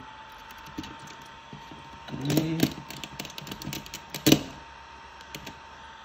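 Handling noise: a run of light clicks and knocks from hands working a precision screwdriver and small parts, with one sharp knock a little after four seconds. A short hummed voice sound comes about two seconds in, and a faint steady high tone sits underneath.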